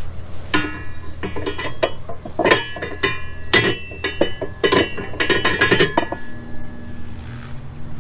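Steel parts clanking together, a run of irregular metal-on-metal knocks and clinks, several of them ringing briefly, as tractor mower-mount hardware is worked back into place.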